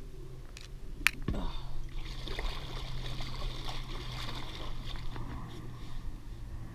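A hand swishing and splashing in the sea water beside a kayak, rinsing off, after a single sharp click about a second in.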